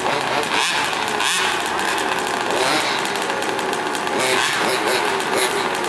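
Small two-stroke engines of gas-powered RC cars running, the pitch rising and falling as the throttles are blipped.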